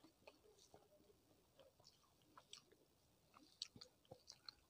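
Quiet eating sounds: scattered soft wet clicks of chewing, and fingers mixing rice with mashed potato on a plate, a little busier near the end.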